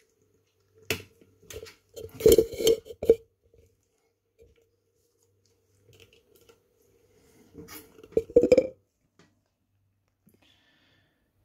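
Handling noise of 9-volt batteries being clicked onto one another to add another cell to the series stack, with knocks against the bench and jug. It comes in two clusters of clicks and knocks, about two seconds in and again near eight seconds.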